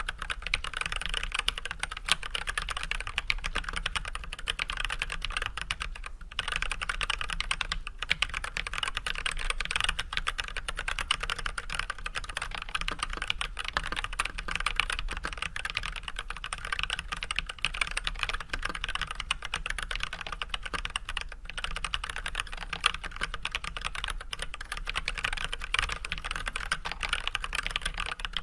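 Steady typing on a mechanical keyboard with unlubed Everglide Red 67g linear switches fitted with switch films, under white PBT keycaps on an Archon AK87 tenkeyless board: a dense, continuous run of key clacks, with a few brief pauses about six, eight and twenty-one seconds in.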